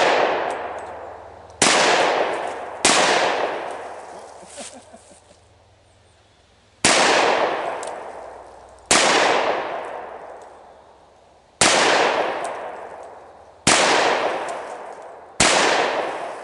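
M1911A1 pistol firing seven .45 ACP +P hollow-point rounds at uneven intervals, each shot followed by a long fading echo. The rounds are cycling through the pistol.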